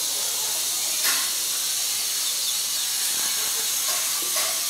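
Steady hiss, strongest in the upper range, with a brief rustle about a second in and a few faint short sounds near the end.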